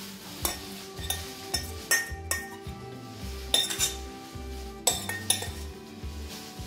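Steel spoon clinking and scraping against steel pans as a ghee tempering is scraped out over a pot of kadhi, with sharp clinks every second or so. Background music with a steady beat plays underneath.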